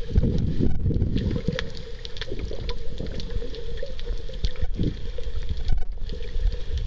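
Underwater sound picked up by a camera while snorkeling: low rumbling water movement, a steady wavering hum, and scattered faint clicks and crackles.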